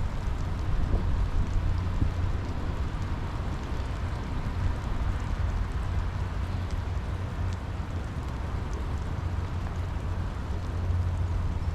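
Steady rainfall with scattered drop ticks over a constant low rumble.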